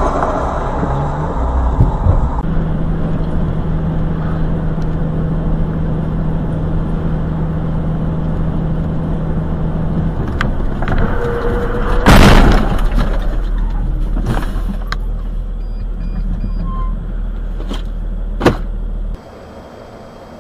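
Vehicle engine and road noise heard from inside the cab on dashcam recordings, with a steady engine drone for several seconds. A loud sudden bang comes about twelve seconds in, then a few sharp clicks, and the sound drops quieter near the end.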